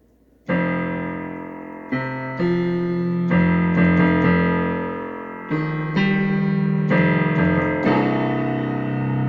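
Piano music: slow chords struck every second or two, each left to ring and fade, starting about half a second in.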